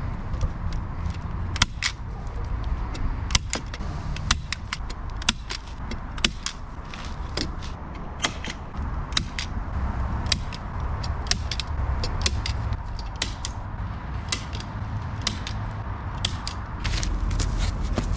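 Irregular sharp metallic clinks and knocks of steel rebar being handled and set in place on a slab foundation's reinforcement cage, over a steady low rumble.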